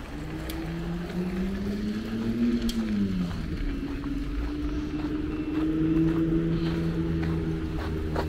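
A motor vehicle's engine running close by. Its pitch rises, then drops about three seconds in, then holds steady over a low rumble.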